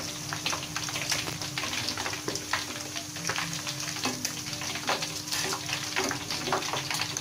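Hot oil in a steel wok sizzling and crackling with many small pops as galangal-coated chicken pieces and loose galangal crumbs deep-fry, with a metal ladle stirring through the oil.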